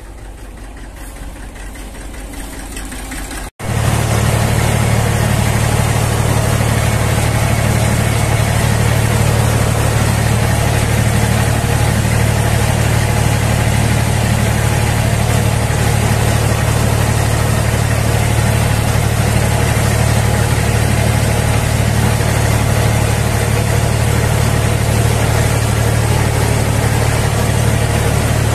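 Tractor engine running steadily under load as it pulls a single-furrow plough through hard grass sod, with a strong low hum. It is quieter for the first few seconds, then after a brief dropout about three and a half seconds in it comes in loud and close.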